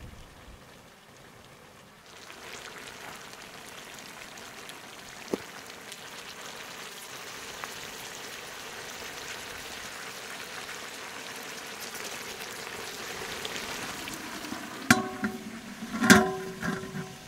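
Water poured into a hot iron pan of seared meat and potatoes, hissing and sizzling as it turns to steam, growing slowly louder. Near the end, an enamel bowl set over the pan as a lid clangs against the metal twice and rings.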